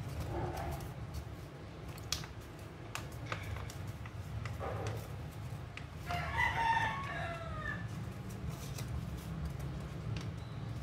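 Origami paper being creased and folded, with short crinkles and taps over a steady low hum. About six seconds in, a single drawn-out animal call of nearly two seconds sounds in the background, dropping in pitch at the end; it is the loudest sound.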